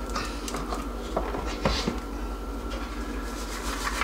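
A few light plastic clicks and taps as the Stir Crazy popper's heating base is lifted off the upturned popcorn bowl and set down on the counter, over a steady low hum.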